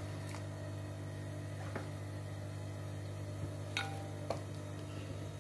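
A serving spoon clicking a few times against a white glass dish as curry is spooned into it, the loudest click nearly four seconds in with a brief ring after it. A steady low hum runs underneath.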